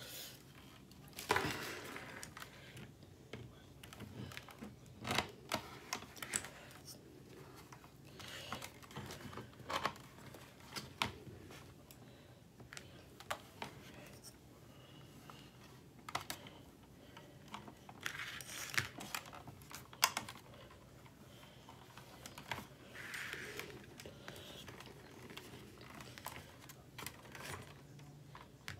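Hand-handling and fitting together the parts of a ring light: scattered, irregular clicks, taps and knocks of the ring and housing, a few of them sharper than the rest.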